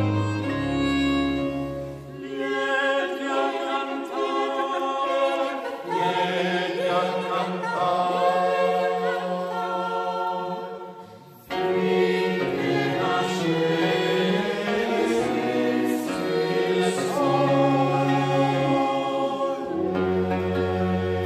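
A mixed choir singing sacred baroque music, accompanied by violins and a continuo of theorbo and low strings. The music breaks off briefly about halfway through and the choir comes straight back in.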